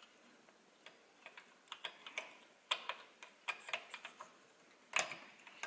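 Faint, irregular small metal clicks and taps as the piston and gudgeon pin are fitted onto the connecting rod of a Lambretta two-stroke scooter engine with a hand tool, with one sharper click about five seconds in.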